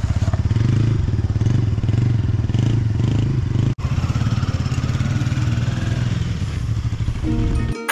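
Motorcycle engine running close by at low revs, a rapid even pulse of firing strokes. It has a momentary break about four seconds in and cuts off just before the end.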